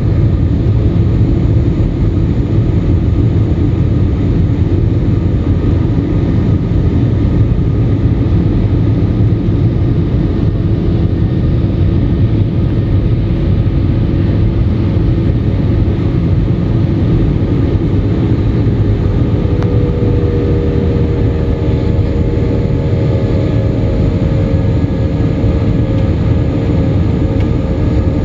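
Steady cabin noise of an Airbus A320 climbing after takeoff: the low rumble of its IAE V2500 turbofans mixed with airflow rush, heard from a seat over the wing. About twenty seconds in, a few faint steady hums join in.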